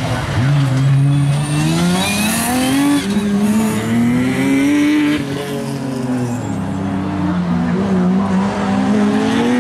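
BMW 3 Series (E36) rally car engine running hard through a tarmac hairpin: revs climb, break at a gear change about three seconds in, climb again, drop off around the middle and rise again near the end. Tyres squeal briefly as the car slides through the turn.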